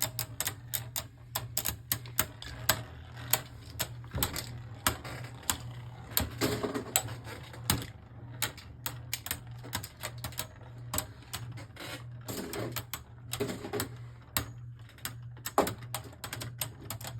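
Beyblade Burst spinning tops clashing in a plastic stadium: rapid, irregular clacking as they hit each other and the walls, over a steady low hum.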